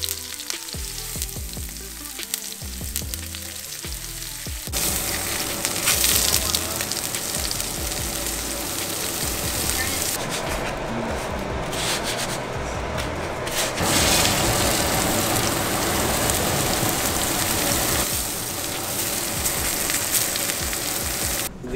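Pepper-crusted blackfin tuna loin searing in hot sesame oil in a pan: a steady sizzle that jumps louder about five seconds in.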